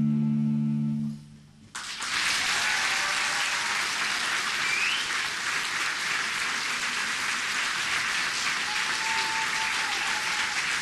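A held low chord of music fades out about a second in. After a brief hush, an audience starts applauding steadily and keeps going, with a few voices calling out.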